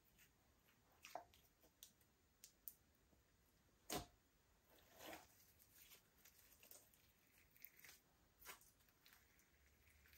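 Faint, scattered squishes and small sticky pops of slime being kneaded by hand, the loudest about four seconds in.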